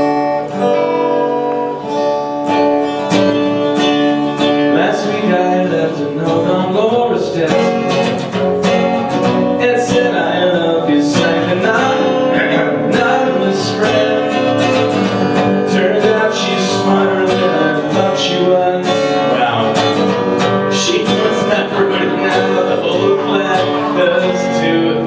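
Acoustic guitar strummed steadily through a song, with a voice singing along in places.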